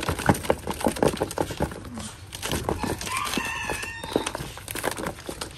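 A rooster crows once, a held call of about a second starting about three seconds in, over repeated rustling and clicking.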